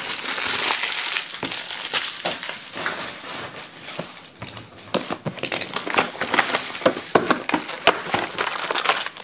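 Plastic and foil packaging crinkling as a 2016 Panini Spectra football card box is opened and its foil packs handled: a dense, steady crinkle for the first few seconds, then sharper, separate crackles.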